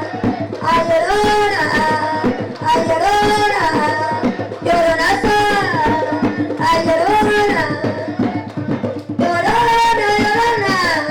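Panamanian tamborito: women singing a repeated melodic phrase about every two seconds over hand drums.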